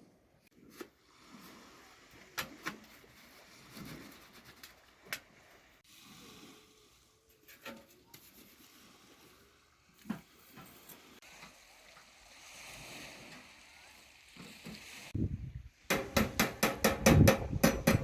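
Scattered light knocks and clicks of objects being handled, then a loud, fast run of knocks, several a second, in the last three seconds.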